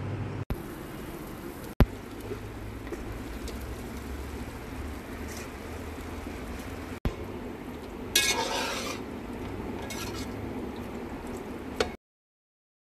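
Food frying in a metal cooking pot while it is stirred, a steady sizzle with a low hum beneath it and a louder burst about eight seconds in. It is broken by a few sharp clicks and cuts off abruptly near the end.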